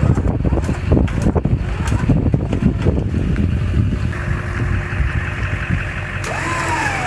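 Winches pulling a dead track loader under load. A low rumble with knocks and clicks runs for the first few seconds. About four seconds in, a steadier motor whine sets in, and near the end a whine rises and then slides down in pitch.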